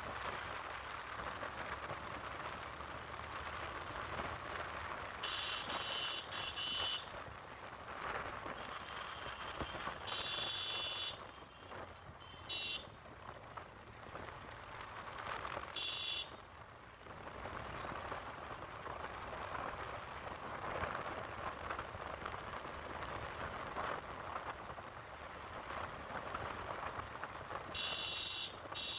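Riding a motorbike: steady wind rush and road noise, with short spells of high-pitched electronic beeping coming and going several times.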